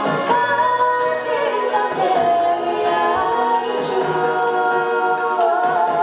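Two girls singing a duet into microphones with musical accompaniment, holding long notes that slide between pitches.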